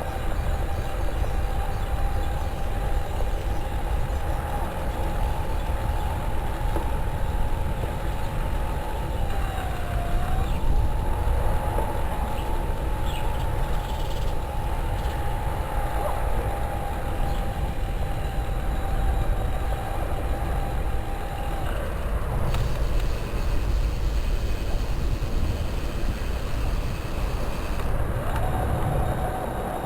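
Fazua Drive 60 mid-drive motor on an e-bike whining steadily under assist, with heavy wind and road rumble and the rattling noise the owner is documenting. The whine dips briefly about ten seconds in, stops about twenty-two seconds in, and comes back near the end.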